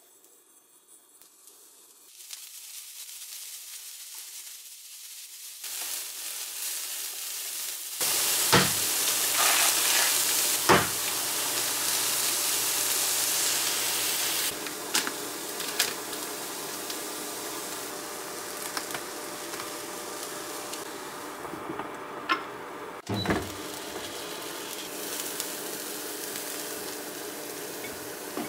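Shredded cabbage and eggs frying in oil in a pan: a steady sizzle that starts faint and turns loud about eight seconds in, with a few sharp clicks along the way.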